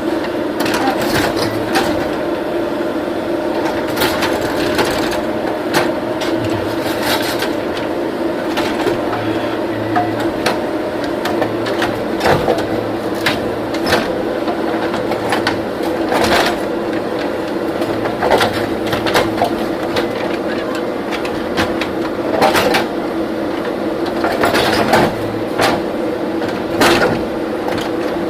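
Diesel engine of a JCB 3DX backhoe loader running steadily under work, with irregular sharp metallic knocks and clanks every second or two.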